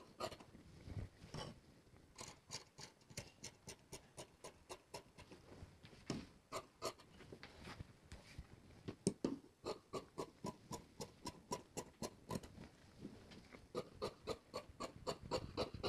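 Large tailor's shears cutting through folded cloth: a steady run of short snips as the blades close, about two or three a second.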